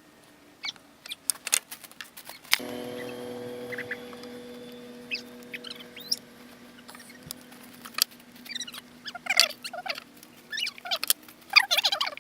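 Hand tools and metal parts clicking and clattering during engine disassembly. About two and a half seconds in, a metal piece is struck and rings with a steady tone that fades over several seconds, and toward the end the clatter thickens into quick runs of clicks.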